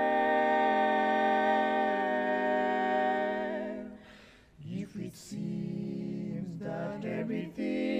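Mixed barbershop quartet singing a cappella: a held four-part chord fades out about four seconds in. After a brief pause a lower-pitched phrase is sung, and the fuller chord comes back near the end.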